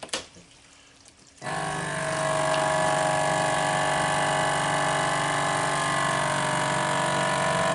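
FoodSaver vacuum sealer's pump motor starts suddenly about a second and a half in, drawing the air out of a bag of ribs in marinade. It hums steadily, rising slightly in pitch as it gets going, then cuts off sharply near the end.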